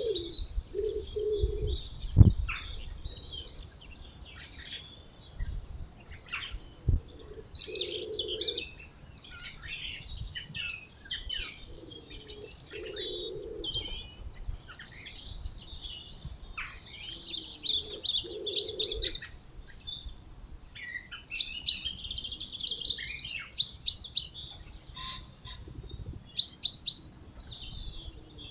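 Small songbirds chirping and trilling in quick runs. Beneath them a low cooing call repeats every few seconds, typical of a pigeon or dove. A single sharp click about two seconds in.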